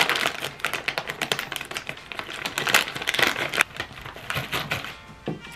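A foil-lined snack bag being pulled open and handled, making a dense, irregular crinkling crackle. It is loudest in the first few seconds and thins out toward the end.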